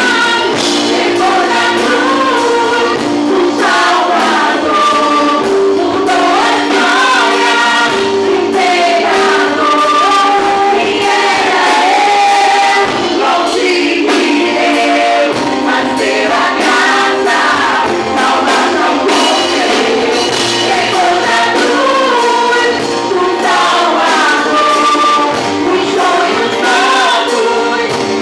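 A church worship vocal group singing a gospel worship song in Portuguese, with several voices together over musical accompaniment.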